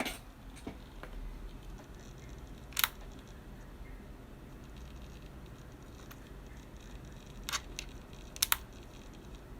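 MacBook Pro charger connector being plugged in: a few isolated sharp clicks spread out, with a quick double click near the end.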